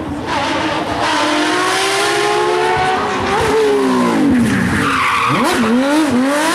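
Porsche 911 GT3 rally car's flat-six engine at full throttle, its pitch rising, then falling as the car brakes and shifts down. Around five seconds in the revs drop sharply and climb again, rising and falling through the corner, with a brief squeal of tyres.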